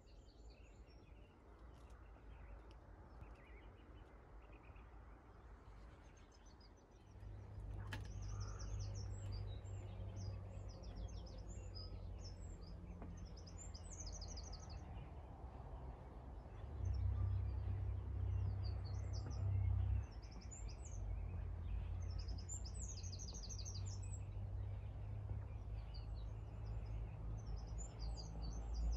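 Small songbirds singing in short, repeated high chirping phrases over a low rumble. The rumble comes in about a quarter of the way through and swells for a few seconds past the middle.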